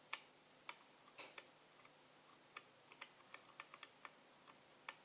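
Faint, irregular clicks and ticks of a fine sharp tool picking and scraping at a laptop motherboard, clearing corrosion to reach a broken-off contact pad.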